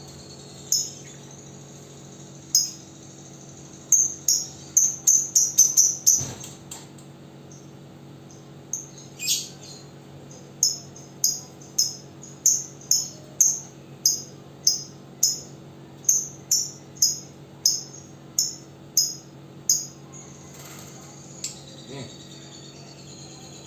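Lovebird giving short, shrill chirps: a quick run of them about four seconds in, then an even series of about two a second from around ten seconds, over a steady low hum.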